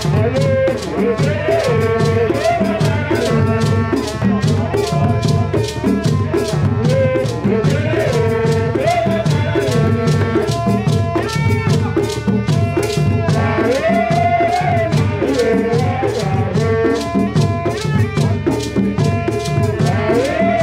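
Tiv traditional dance music: drums and rattles keep a quick, steady beat under a melody of wavering, rising and falling notes.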